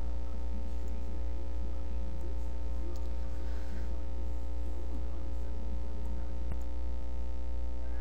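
Steady electrical mains hum with a stack of buzzing overtones, even in level throughout, and one faint click about six and a half seconds in.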